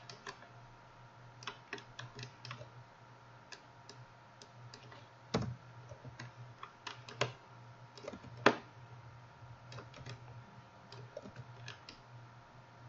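Scattered clicks and taps of a computer keyboard and mouse at irregular intervals. A few are louder, the loudest about two-thirds of the way in, all over a low steady hum.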